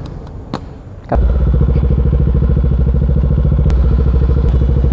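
A couple of sharp clicks, then about a second in a motorcycle engine cuts in loud, running steadily with a fast, even pulse and a deep rumble.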